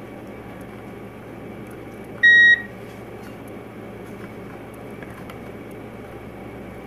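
A single short electronic beep, a steady high tone lasting about a third of a second, a little over two seconds in, over a steady background hiss.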